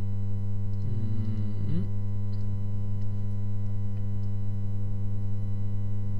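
Steady electrical mains hum with a stack of buzzing overtones, constant in level throughout.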